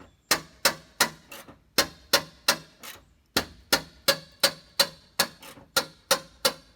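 Repeated sharp metal-on-metal strikes, about three a second with a short pause about three seconds in, each ringing briefly, as a stuck, rusted bumper fastener is hammered on.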